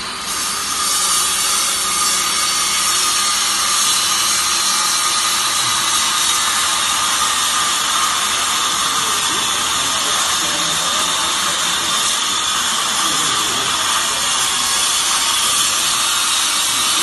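Fibre baler machinery running steadily: a constant loud hiss with a steady high whine.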